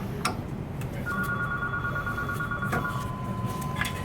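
Electronic tones like a telephone's: two steady high tones sounding together for about two seconds, then one slightly lower steady tone held for about two seconds more. A low steady hum and a couple of faint clicks run underneath.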